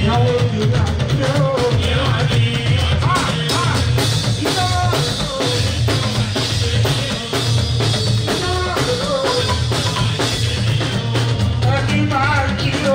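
Live fuji band music: drums and percussion over a bass guitar line, with a singer's voice over the band.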